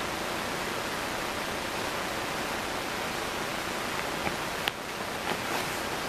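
Steady hiss of background noise, with a few light clicks and taps in the last two seconds as plastic toy horse figures are handled.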